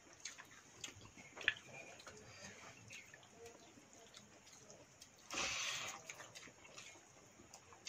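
Quiet eating by hand: fingers stirring and scooping water-soaked pakhala rice in steel bowls, with scattered small clicks and mouth sounds. About five seconds in comes a short rush of noise lasting under a second.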